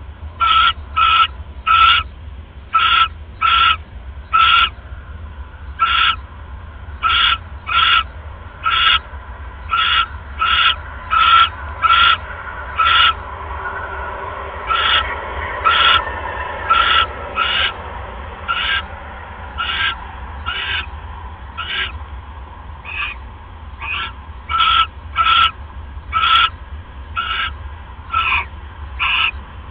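Barn owl giving an irregular run of short raspy, hissing calls, roughly one to two a second, over a steady low hum.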